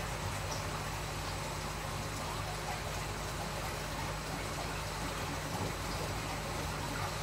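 Aquarium water circulation: steady running water with a low, even pump hum.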